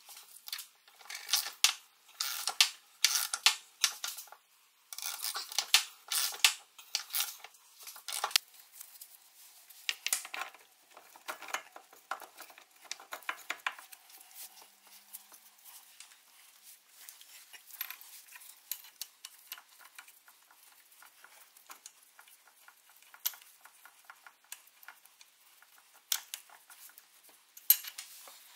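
Light metallic clinks, taps and clicks from hand tools and small metal parts being handled and set down. They come thick and fast for the first dozen seconds or so, then grow sparse.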